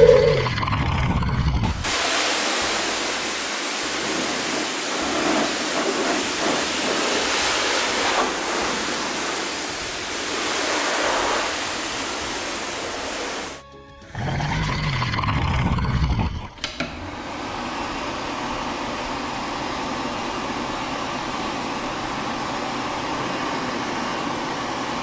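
Cartoon car-wash spraying sound effect: a long rushing hiss of liquid spray, broken about fourteen seconds in by a low whoosh, then a softer steady hiss, with music underneath.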